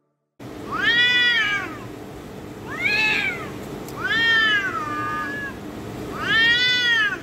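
Two cats yowling at each other in a fight standoff: four long, drawn-out yowls, each rising then falling in pitch, with short gaps between them.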